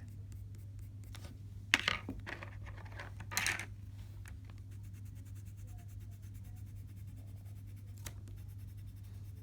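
Colored pencil scratching on paper in short fur strokes, with a sharp click a little under two seconds in and two brief louder scratches, over a steady low hum.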